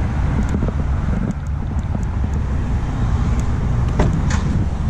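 Steady low outdoor rumble of road traffic and wind on the microphone, with a few light clicks and a sharper knock about four seconds in.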